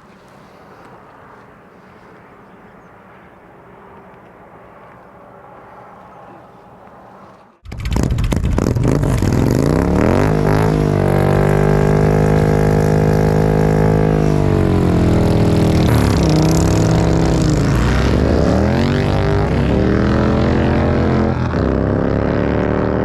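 Indian V-twin motorcycle engine under way, coming in suddenly about seven seconds in: its pitch climbs, falls back at each gear change and climbs again, rising steadily near the end as it accelerates. Before that there is only a faint steady low hum.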